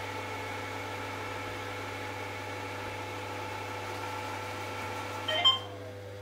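Toshiba robot vacuum cleaner running, its suction fan and brushes giving a steady whine as it drives onto its charging dock. Near the end a short sharp sound comes as it docks and the running stops.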